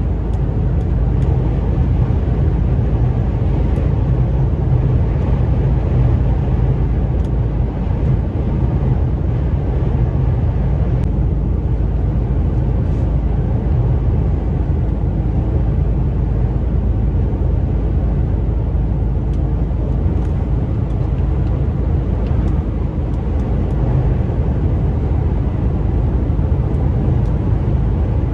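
Cab noise of a Mercedes-Benz Actros semi-truck cruising on a motorway: a steady low engine drone mixed with road and tyre rumble.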